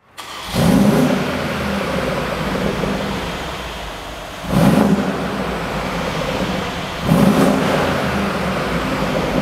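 Mercedes-AMG G63's biturbo V8 idling with a steady burble through the exhaust, blipped three times in short revs about half a second in, at about four and a half seconds, and near seven seconds.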